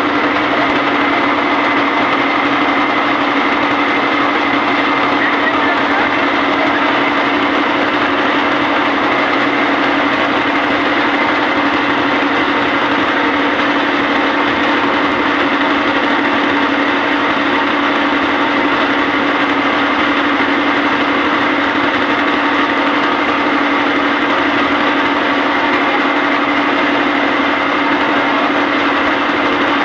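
Motorboat engine running steadily at cruising speed, close by: a loud, even drone that holds one pitch throughout.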